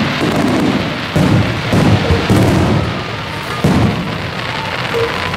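Aerial firework shells bursting overhead: four deep booms within about two and a half seconds, the first about a second in.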